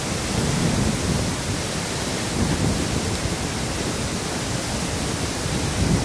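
Steady rushing of a river in full spate with spring snowmelt, white-water rapids running close by.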